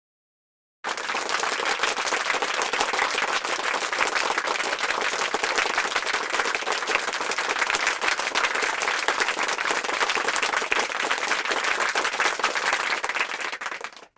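Crowd applause, many hands clapping at an even level, starting about a second in and fading out just before the end.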